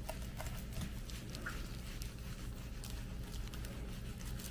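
Knife slicing through a raw yellowtail fillet on a wooden cutting board, heard as faint, scattered soft ticks and taps.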